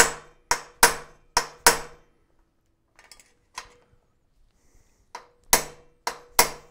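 Hammer striking a metal punch set against a bicycle's upper headset cup inside the head tube, knocking the cup out. Five quick blows, a pause with a couple of light taps, then four more blows, each with a short metallic ring; the cup is breaking free.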